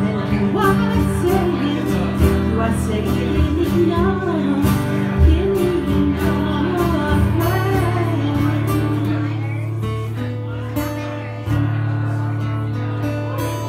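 Live performance: a woman singing a melody into a microphone while a man strums chords on an acoustic guitar.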